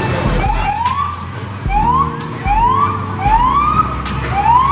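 Siren whoops: about five rising wails in a row, each climbing and then levelling off, with a deep low thump at the start of each. The last whoop, near the end, rises higher and is held longer.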